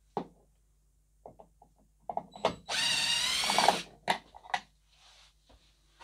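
Cordless drill-driver fitted with a T25 Torx bit running for about a second as it spins a screw out of a tailgate trim panel handle. A few sharp clicks and knocks come before and after the run.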